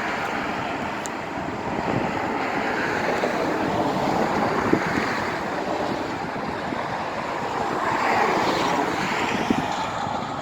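Outdoor street noise: wind rushing on the microphone over traffic, with a swell in the noise about eight seconds in.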